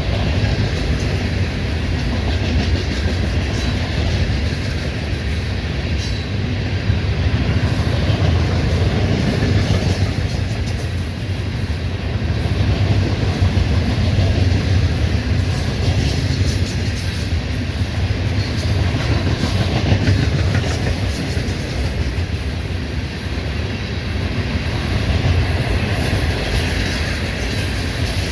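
A train rolling steadily past, a continuous rumble with the clack of wheels over the rail joints.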